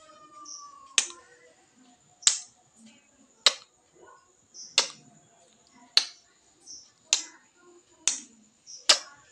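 Sharp kiss smacks of lips pressing onto and pulling off a mirror, repeated evenly about once a second, eight times.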